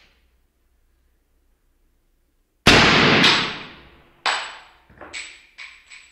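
A single suppressed AR-15 shot slowed to half speed: a loud, sharp report about two and a half seconds in with a long decaying tail, and a second crack about half a second later. Then a sharp metallic hit and several smaller clicks with thin, high ringing tones, typical of the spent brass casing striking and bouncing on a tile floor.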